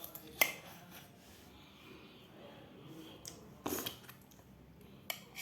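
Close-miked eating sounds: a spoon or fork clicking sharply against a plate a few times, with quiet mouth and chewing noise between and one short, louder noisy burst about three and a half seconds in.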